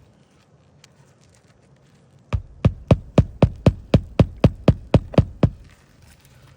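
Hammer driving a roofing nail into an asphalt shingle: about a dozen quick, even strikes at roughly four a second, starting a couple of seconds in and stopping suddenly.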